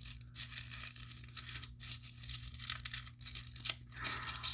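Small plastic accessory wrapper being torn open and crinkled by hand, in irregular crackling rustles.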